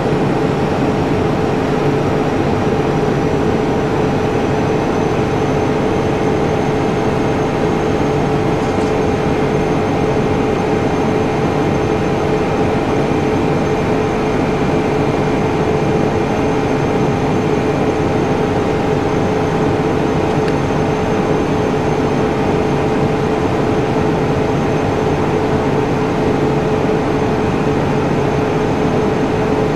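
Steady machinery hum and hiss with a constant mid-pitched tone, unchanging throughout.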